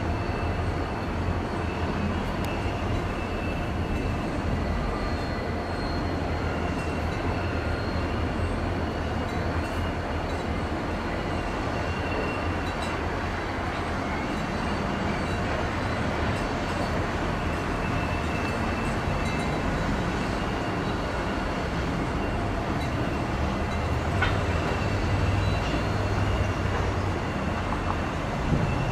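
Four-unit lash-up of Wisconsin & Southern diesel locomotives hauling a freight train, heard as a steady low rumble with faint steady high tones above it.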